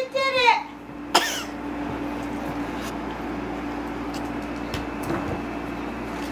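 A toddler handling the camera: a sharp knock about a second in, then steady rubbing and rumbling noise on the microphone over a constant low hum. Just before, a sung "night night" trails off.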